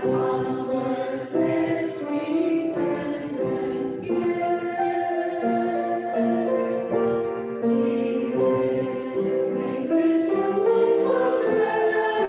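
Choir singing a hymn with instrumental accompaniment, in slow held notes.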